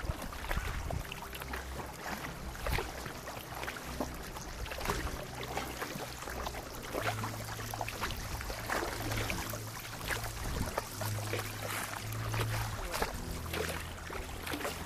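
Kayak paddles dipping and splashing in calm sea water, with water dripping off the blades, stroke after stroke. Quiet low orchestral strings hold sustained notes underneath.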